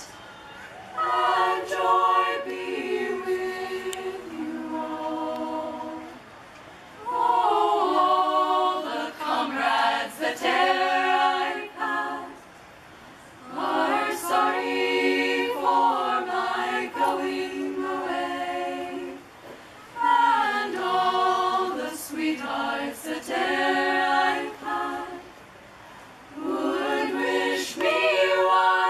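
A women's a cappella group singing in close harmony with no instruments, in phrases of about five seconds with brief pauses for breath between them.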